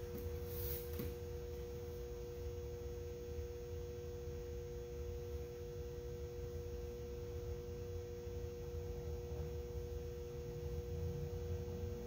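Room tone: a steady hum of two held tones with a low rumble beneath, and a couple of faint rustles in the first second.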